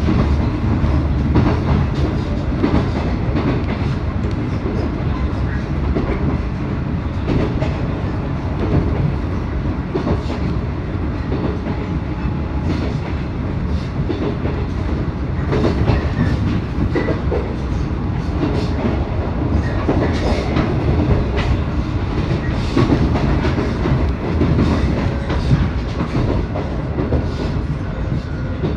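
JR 719 series electric train running at speed: a steady low rolling rumble with frequent sharp clacks of the wheels over rail joints.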